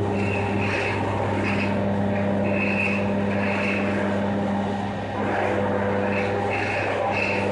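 A machine running with a steady low hum, with short high-pitched squeals that come and go over it.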